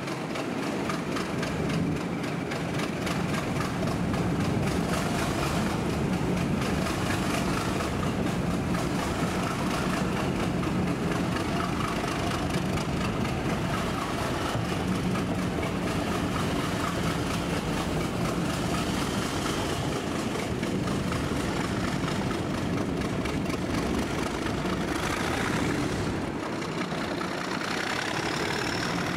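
Diesel locomotive's engine running steadily under load as it hauls the train, heard from an open coach window, over the steady run of the coach wheels on the rails.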